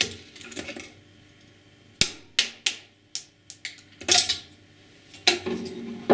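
Sharp metallic clicks and clinks of a screwdriver and pliers working the rusted clamp screw of a steel band on an old electric motor housing, twisting the screw until it shears and the band comes loose. The loudest clink, about four seconds in, rings briefly.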